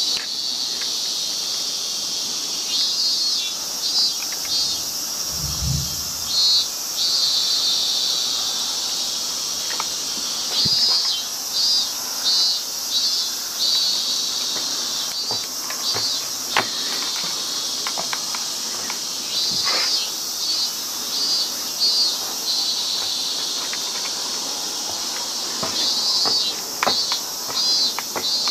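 Insects singing steadily in a high, even drone, with bursts of rapid pulsed chirps every few seconds. A few light knocks are footsteps on the wooden observation-deck steps, and there is a low thump about five seconds in.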